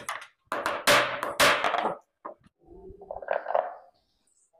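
A hammer strikes a steel bolt set in a wooden strip: three loud knocks in the first two seconds drive the bolt's square shoulder into the wood. A quieter, rougher sound follows about three seconds in.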